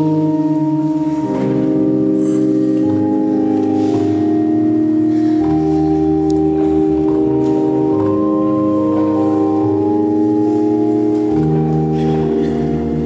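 Organ playing slow, sustained chords that change every second or few seconds, with deep bass notes coming in about five seconds in and again near the end.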